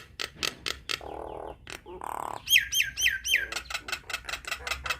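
Nias hill myna calling vigorously: sharp clicking notes and harsh squawks, then a run of four quick downward-sliding whistles about halfway through, followed by rapid sharp notes.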